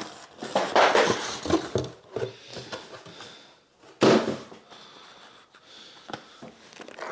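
Packaging being handled and opened: irregular crinkling and rustling, with a sharp louder rip or crackle about four seconds in.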